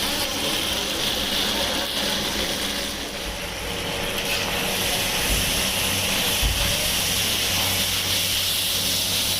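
Chicken frying in hot oil, a steady sizzling hiss with a low hum underneath.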